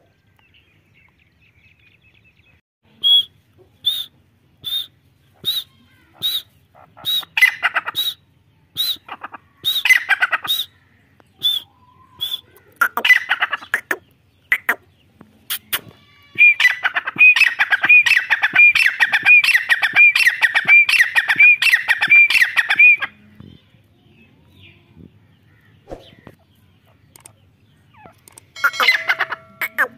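Grey francolin (teetar) calling: short high calls about once a second, building into a loud, rapid run of repeated ringing calls lasting about six seconds, with one more short burst near the end.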